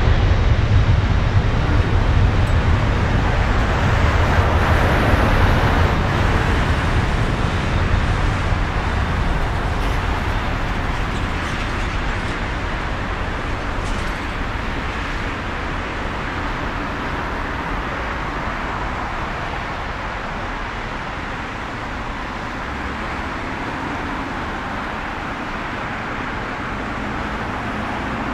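Boeing 747-400's four jet engines at takeoff thrust as the jumbo jet rolls down the runway and away, a steady broad rumble that is loudest in the first few seconds and slowly fades.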